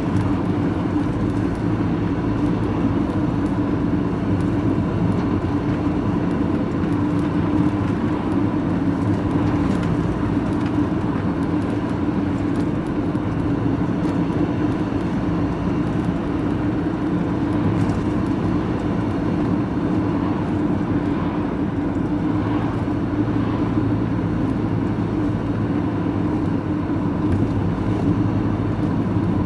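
Steady engine and road drone heard from inside a lorry cab while driving along at a constant speed.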